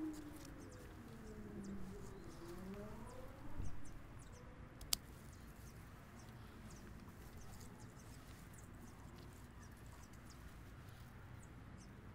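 Pruning secateurs cutting a verbena stem, a single sharp click about five seconds in, with faint rustling of stems around it. Over the first few seconds there is a faint drawn-out sound that rises and falls in pitch.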